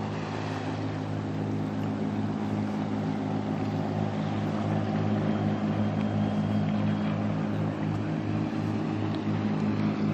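A motor engine drones steadily with a low, slightly pulsing hum.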